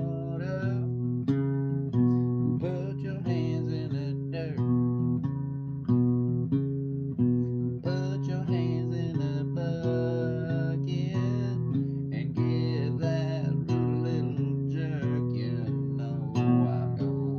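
A man singing a song to his own acoustic guitar, which he picks and strums in a steady rhythm.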